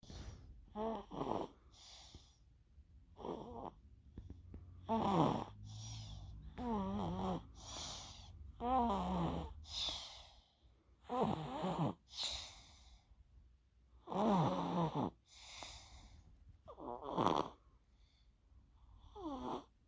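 Snoring in deep sleep: a long run of snores, one every second or two, many with a wavering, sliding pitch.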